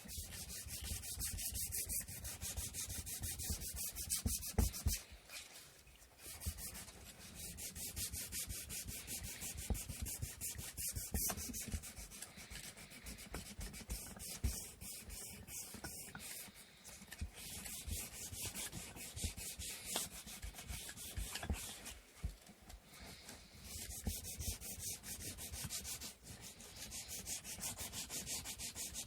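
Hand sanding of wooden inkle loom parts with sandpaper: quick back-and-forth rubbing strokes in steady runs, with a few short pauses.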